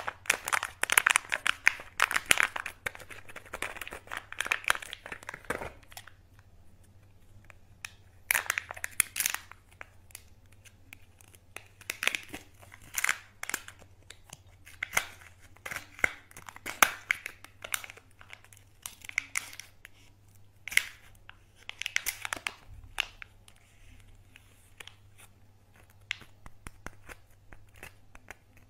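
Foil wrapper and foil lid of Kinder Joy eggs being peeled and crinkled by hand, in bursts of crisp crackling separated by short pauses. The crackling thins out over the last few seconds.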